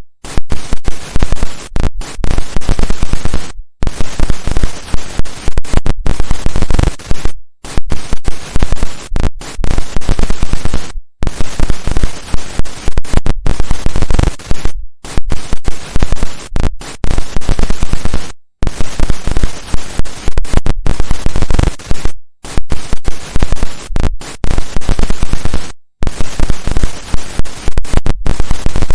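Old analog television with no signal: loud static hiss that crackles and cuts out for a split second many times, at uneven intervals.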